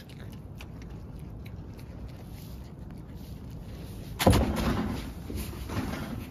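Sheep chewing parsnip greens close to the microphone, with faint small crunching clicks. About four seconds in there is a loud rustling bump of handling noise as the phone brushes against a sheep or a coat.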